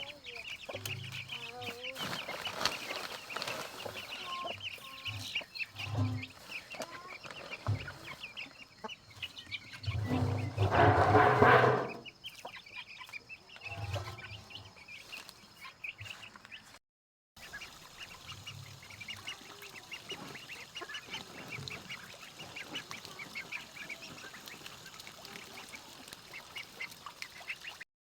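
Domestic poultry calling, with many short, rapid high calls throughout and one loud, drawn-out call lasting about two seconds, about ten seconds in.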